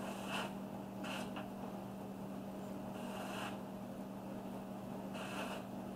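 Airbrush spraying paint through a stencil in several short hissing bursts, the longest about half a second, over a steady low hum.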